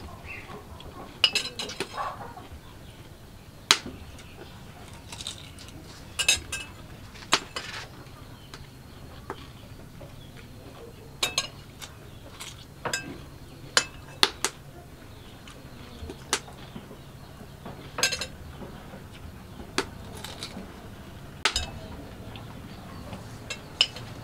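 A spoon clinking against a plate and bowl during a meal, with crisp bites of a raw green vegetable: short sharp clicks scattered irregularly, a second or two apart.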